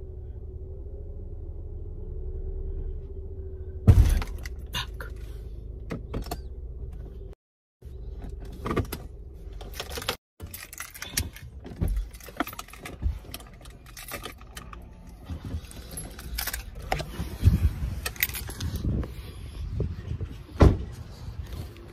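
A car's engine humming steadily inside the cabin for about four seconds, then a sharp knock followed by a long run of clicks, knocks and rattles with keys jangling, from handling the phone and keys.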